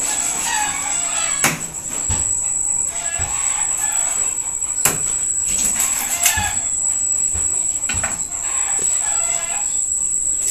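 Chickens clucking and crowing in short calls every few seconds, with a couple of sharp knocks from a knife cutting fish on the counter.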